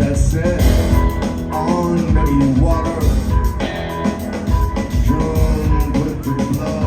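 Rock band playing live: drum kit and bass under a short high note that repeats every half second or so.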